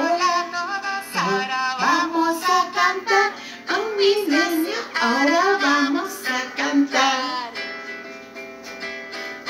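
A children's song: a sung melody over a plucked guitar accompaniment.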